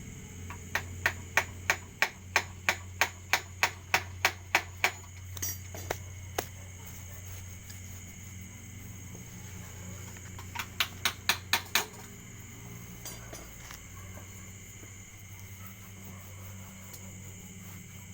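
Sharp, evenly spaced knocks like hammer blows, about three a second for roughly four seconds, then a quicker run of about six near the middle, over a steady low hum and high insect chirring.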